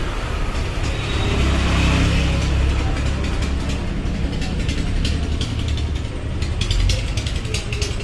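Rapid metallic clicking from hand tools and engine parts, heard while a cylinder head is fitted onto a Royal Enfield 350 engine. The clicking comes thick from about five seconds in, over a steady low rumble.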